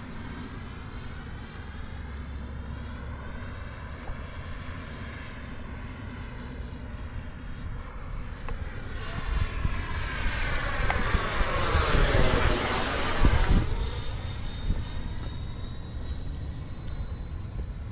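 80 mm electric ducted fan of an E-flite F-18 RC jet whining in flight. The whine steps up in pitch about three seconds in, grows louder as the jet passes close, then drops sharply in pitch as it goes by.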